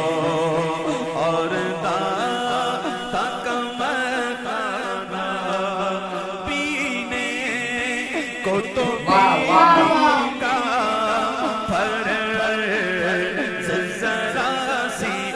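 Male naat singer reciting an Urdu devotional naat into a microphone, in a long ornamented, melismatic vocal line over held backing voices. A loud, high, ornamented phrase rises and falls about nine seconds in.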